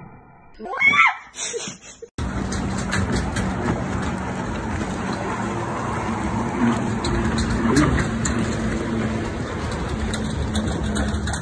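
A short, loud, high-pitched cry about a second in. Then, from a sudden cut, a steady rushing noise of wind and lake water, with a low steady hum under it.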